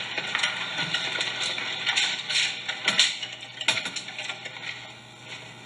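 Soundtrack of a film clip played over hall loudspeakers: a steady hiss with scattered clicks and rustles, and no clear speech or music.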